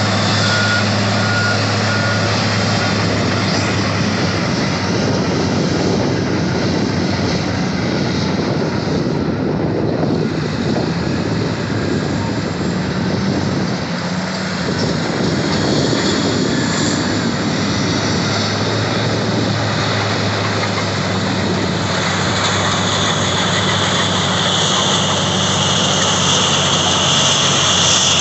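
Heavy diesel engines of Caterpillar D10N bulldozers and a Caterpillar 651E wheel tractor-scraper running under load, a loud steady drone. A backup alarm beeps faintly near the start, and a high whine joins in for the last several seconds as the scraper loads with the dozer pushing.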